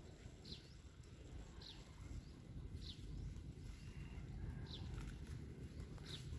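A bird calling: about five short, high chirps a second or so apart, over a faint low background rumble.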